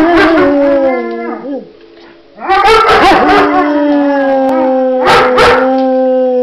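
German Shepherd howling: two long, drawn-out howls with a short break about two seconds in, the second one held steady and sinking a little near the end. Shorter, rougher yelping cries break in over the held notes.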